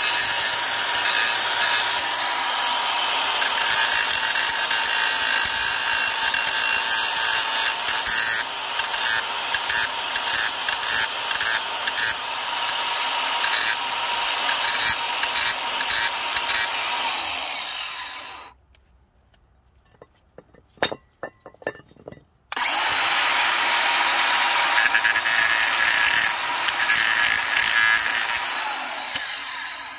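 DeWalt cordless angle grinder grinding rust off a steel brake caliper bracket, running under load with a steady high whine. About 17 seconds in it winds down and stops for about four seconds, with a few light clicks. It then starts again and grinds until it winds down just before the end.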